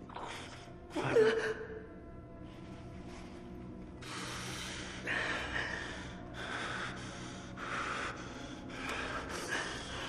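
A man gasping and breathing hard in anguish: a sharp, loud gasp about a second in, then a run of ragged, heavy breaths, about one a second.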